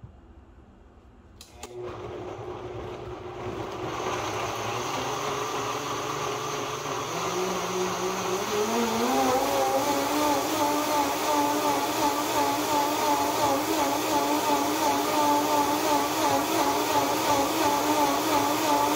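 Electric blender running. It starts about two seconds in, its motor pitch climbs partway through and then holds steady, and it stops suddenly at the end.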